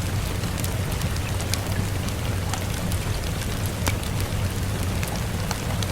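Steady rain falling, with a low rumble underneath and scattered sharp crackles from a wood fire burning.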